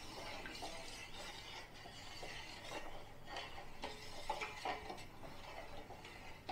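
Faint scraping and light clinks of a spoon stirring sugar syrup in a pan, a few sharper clinks about halfway through. The stirring keeps the undissolved sugar from settling on the bottom.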